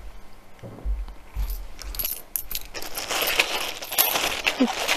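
Small metal snap fasteners clinking as they are handled, with the rustle of their packaging in the second half.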